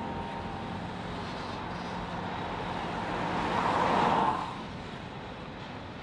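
Double-stack container well cars of a freight train rolling past: a steady rumble and rush of steel wheels on rail, swelling louder for about a second around the middle and then dropping away suddenly.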